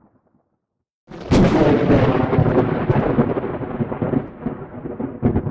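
Thunder. After a brief silence, a sharp crack comes about a second in and runs into a long rumble that slowly fades, with a few more rolls near the end.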